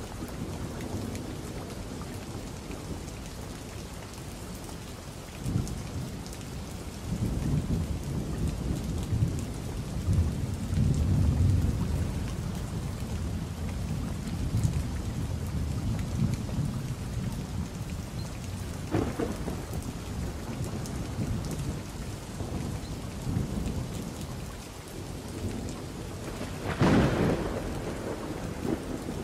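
Thunderstorm: steady rain under a long low rumble of rolling thunder about a quarter of the way in. Two sharp cracks of thunder follow, the louder one near the end.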